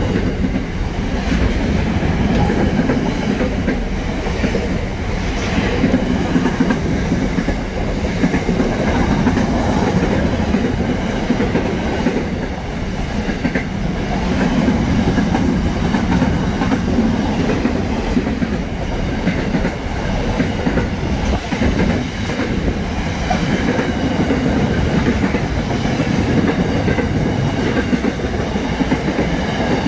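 Container freight train's wagons rolling past close by at speed, a loud, steady rumble of steel wheels on the rails.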